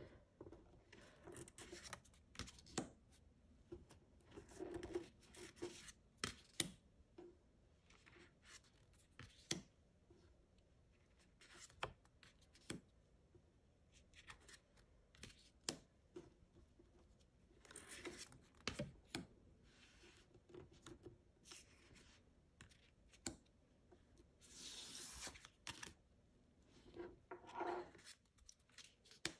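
Oracle cards being handled on a wooden table, slid one by one off the deck and set down: quiet swishes of cardstock with soft taps and clicks at irregular intervals.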